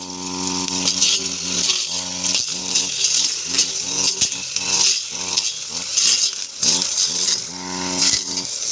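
Grass cutter running and cutting. Its motor hum rises and falls in pitch every second or so over a continuous high hiss and rattle.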